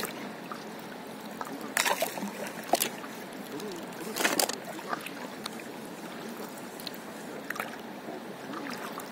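Water trickling and lapping against a stand-up paddleboard gliding over calm sea, with a few sharper splashes of the paddle dipping into the water in the first half.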